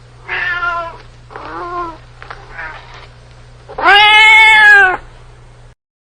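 Domestic cat meowing: three shorter meows, then a long, loud drawn-out meow about four seconds in, over a low steady hum.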